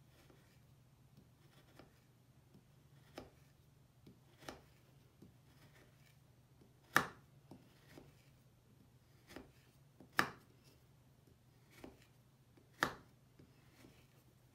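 A knife slicing thin slices off a solid bubble bar on a wooden cutting board: single crisp cuts at irregular intervals, about a dozen, with three louder ones about seven, ten and thirteen seconds in. A faint steady low hum runs underneath.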